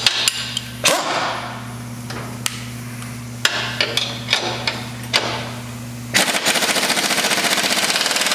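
Scattered clicks and knocks over a steady low hum. About six seconds in, a pneumatic impact wrench starts hammering rapidly and evenly for a couple of seconds, running down the bolt that holds the water valve in the transplanter's steel frame.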